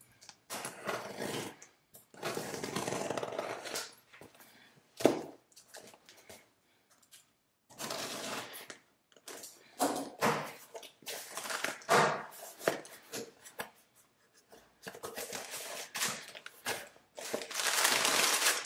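Utility knife slitting packing tape along a cardboard box, then the cardboard flaps being pulled open, with a single sharp knock about five seconds in. Near the end, crumpled brown kraft packing paper rustles loudly as it is pulled aside.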